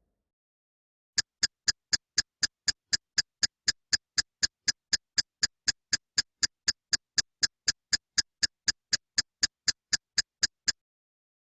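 A ticking sound effect: short, sharp, evenly spaced ticks at about four a second. It starts about a second in and stops abruptly near the end.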